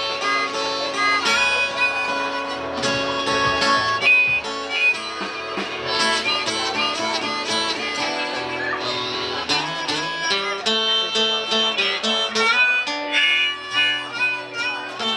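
Live band playing an instrumental passage: strummed acoustic guitar and harmonica over a drum kit, with steady sustained harmonica notes and a regular beat.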